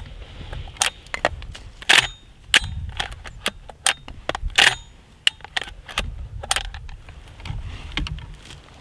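An irregular run of sharp clicks and knocks, a couple dozen in all, some much louder than others, over a steady low rumble.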